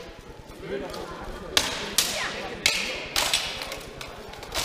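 Steel longswords and plate armour clashing in a full-contact armoured duel: about five sharp metallic hits over the second half, with voices murmuring behind.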